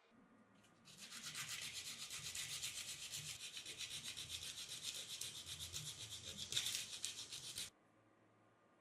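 A steady, rapid rubbing or scraping noise that lasts about seven seconds and cuts off suddenly.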